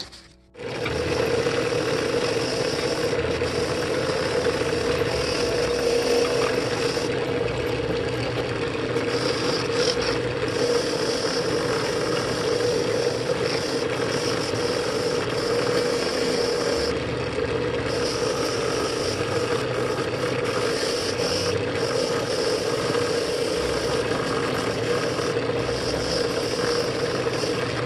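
A drill press spins a wire cup brush with a steady motor hum while the brush scrapes against a steel adjustable wrench to strip its rust. The sound starts about half a second in, and the scraping grows louder and softer every second or two as the wrench is moved against the brush.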